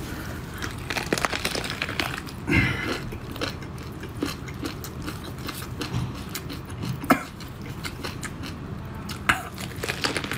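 Close-miked wet squelching and tearing as gloved hands pull apart spicy sauce-coated food, then biting and chewing, with a few sharp smacks and clicks; the loudest comes about seven seconds in.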